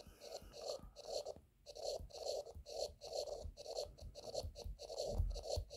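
Stylus writing on a tablet screen: a faint run of short scratchy strokes, about two or three a second, as a word is written letter by letter, with a soft low bump near the end.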